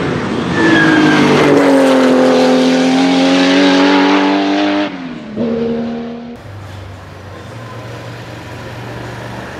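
Porsche 935 K3's twin-turbo flat-six racing engine under hard throttle, passing by with a loud, fairly steady note. About five seconds in, the note drops as the driver lifts, then picks up again briefly before cutting off. A quieter steady low hum follows.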